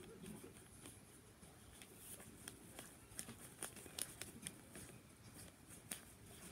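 Faint, irregular short scratches and ticks of a marker writing on paper, thickest in the middle of the stretch.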